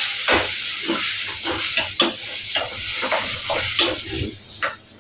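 Chopped tomatoes sizzling as they fry in desi ghee in a stainless-steel pan, with a metal spoon scraping and clinking against the pan as they are stirred.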